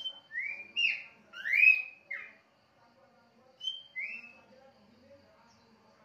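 Caged pelanduk semak (tikusan) babbler singing a run of clear whistled notes, some rising and some falling, packed into the first two seconds, then two more notes about a second and a half later.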